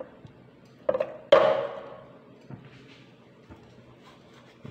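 A wooden bowl knocked twice against the rim of a ceramic bowl about a second in, the second knock the louder, to shake grated jaggery out into it; a few faint small taps follow.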